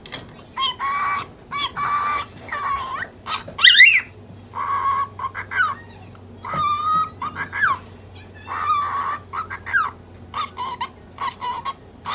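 Cockatiel chattering in a quick string of mimicked, speech-like phrases and chirps, with one loud sweeping call about four seconds in and shorter chirps near the end.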